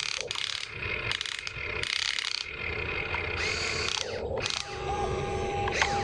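Huina RC excavator's electric gear motors whining and grinding in several short bursts, starting and stopping, as the arm digs into sand, lifts the bucket and swings the upper body round.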